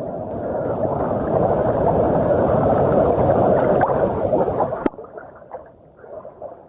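Seawater washing and gurgling over a phone's microphone held at the waterline while swimming, a loud muffled rush that cuts off suddenly about five seconds in. After it come small splashes and crackling droplets.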